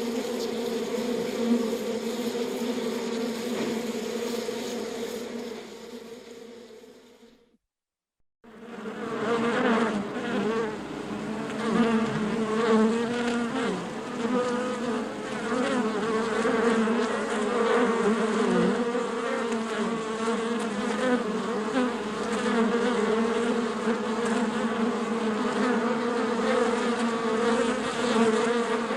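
Bees in a beehive buzzing in a steady, dense drone of many wingbeats. About seven seconds in the buzzing fades out to a second of silence, then cuts back in just as full.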